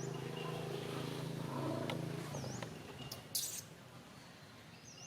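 A bird repeating a short, high whistle that dips and rises again, about every two and a half seconds. Under it a steady low hum fades out about halfway through, and a brief rustling crackle comes soon after.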